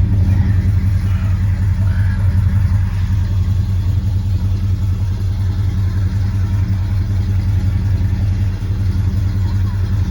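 A 1971 car's engine idling steadily, with a low, even exhaust note.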